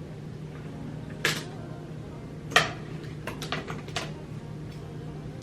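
A few short, sharp clicks and knocks of small hard objects being handled, the loudest about two and a half seconds in and a quick cluster of lighter ones near the middle, over a steady low hum.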